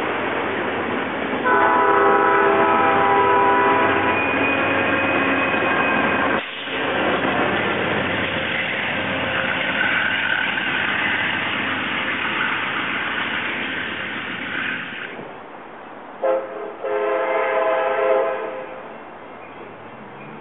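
Amtrak Capitol Corridor passenger train of bi-level coaches rushing past with loud wheel and rail noise, its multi-note air horn sounding for about two seconds near the start. The rumble fades, then another approaching train sounds its horn near the end: a short toot and a longer blast.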